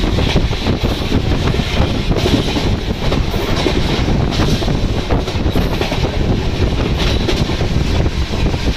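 Express train passing through a station at about 110 km/h without stopping: a loud, steady rush and rumble of the coaches, with wind buffeting the microphone.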